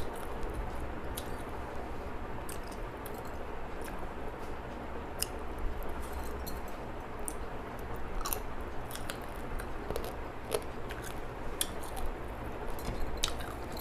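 A person eating a Bengali fish meal: chewing, with soft wet smacks and many small sharp clicks scattered over a steady background hiss.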